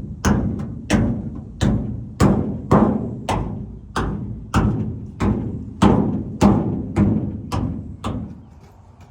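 A steady series of heavy knocks, about one and a half a second, each ringing briefly. They stop about a second before the end.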